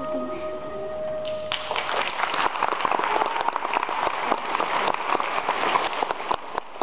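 A symphony orchestra's last held note dies away about a second and a half in, and the audience breaks into applause in the concert hall.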